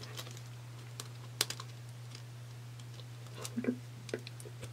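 Long acrylic nails clicking and tapping against a clear plastic binder pouch as it is handled and opened: a few scattered light clicks, a sharper one about a second and a half in and a small cluster near the end, over a steady low hum.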